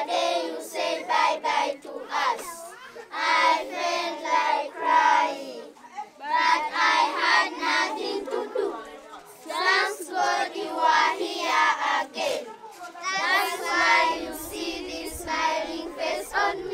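A group of children singing together in short phrases with brief breaks between them.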